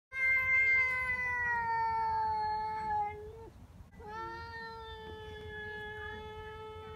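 Domestic cat yowling in a face-off with another cat, a territorial standoff. One long drawn-out yowl sags slightly in pitch and breaks off about three and a half seconds in. A second, steadier and quieter yowl begins about half a second later.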